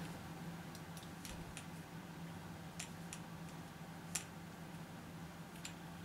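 Quiet handling of beads and wire: a few sparse, sharp little clicks as yarn is threaded through a drilled turkey spur and beads, the sharpest about four seconds in, over a steady low hum.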